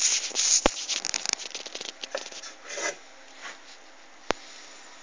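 Handling noise: scratchy rubbing and rustling as the wooden sign is handled close to the microphone, dying away after about three seconds. Two sharp clicks, one under a second in and one past four seconds, then a faint steady hum.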